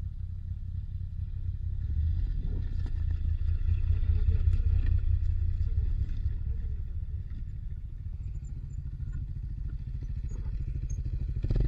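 Moto Guzzi V85TT's air-cooled V-twin engine running at low revs on a ride, a steady low rumble that grows louder about two seconds in and eases off again after about six seconds.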